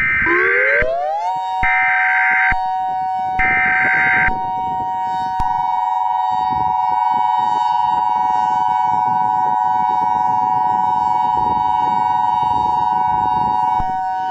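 Emergency Alert System tones: three short bursts of screeching header data while a siren winds up in pitch over about a second and then holds steady. A second steady tone joins about five seconds in, and the tones cut off shortly before the end.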